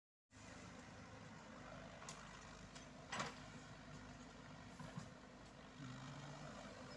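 Komatsu PC78UU mini excavator's diesel engine running steadily while it digs soil, starting abruptly a moment in. A sharp knock about three seconds in and a lighter one about five seconds in are the loudest moments.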